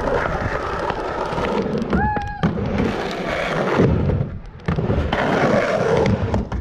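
Skateboard wheels rolling over a wooden ramp with a continuous rumble, broken by a few sharp clacks and thuds of the board.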